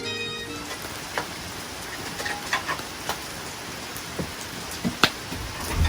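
Rain falling steadily, with scattered drops tapping, one sharper tap about five seconds in. A tail of background music ends in the first half second.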